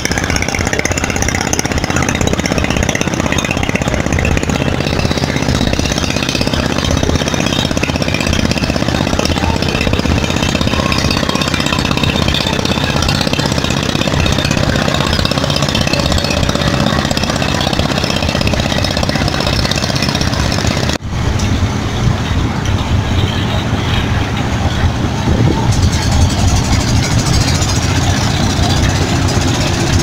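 Steady, loud engine noise of motorised river boats and launches, mixed with a hubbub of voices; the sound drops out for an instant about two-thirds of the way through.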